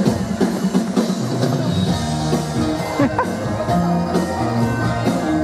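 Upbeat Christmas song with drums and guitar playing an instrumental stretch between sung verses.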